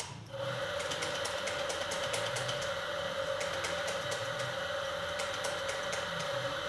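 Electric coffee grinder running, grinding beans into a portafilter held under its spout: a steady motor hum with a dense crackle of beans, starting just after the beginning.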